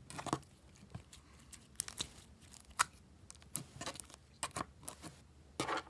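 Homemade slime being squished and stretched by hand, giving irregular sticky pops and clicks, with a longer crackling squelch near the end.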